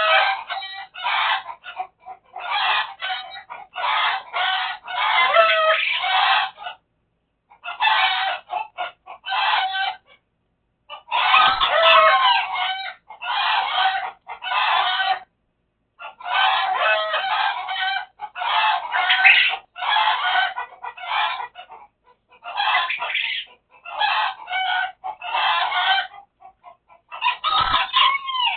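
Chickens clucking and calling in near-continuous runs with short gaps, with crowing among them.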